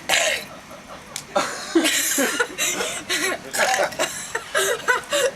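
A burp attempt comes out as one short, harsh burst from the throat right at the start, then several seconds of laughter.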